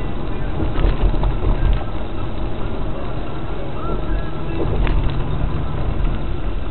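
Steady engine and road noise of a moving car heard from inside the cabin, with a few faint clicks and no impact.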